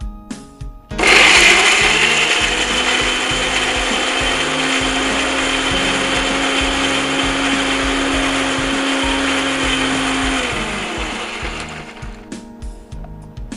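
Electric mixer grinder running, blending a wet paste of roasted red peppers and spices. The motor starts abruptly about a second in and its whine rises slightly to a steady speed. It is switched off near the end and winds down.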